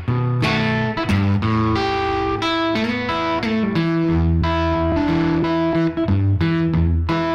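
Background music led by guitar, over a bass line and a steady beat.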